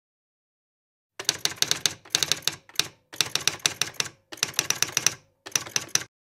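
Typewriter sound effect: six quick runs of rapid key clacks, starting about a second in.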